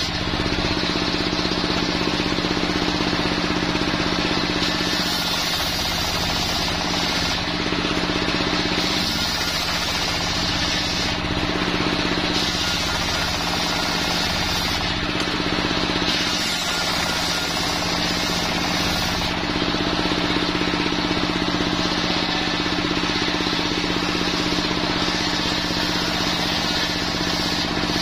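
Homemade engine-driven circular saw bench running steadily while its blade rips jenitri wood slabs into boards. The cutting hiss comes and goes several times over the steady drone of the engine.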